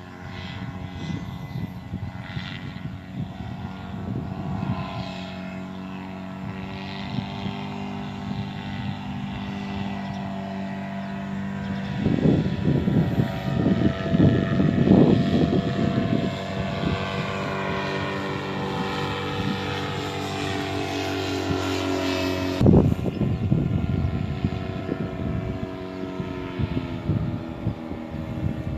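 Paramotor engine and propeller droning steadily in flight, with gusts of wind buffeting the microphone several times, heaviest between about twelve and sixteen seconds in. The engine note changes abruptly a little past twenty-two seconds in.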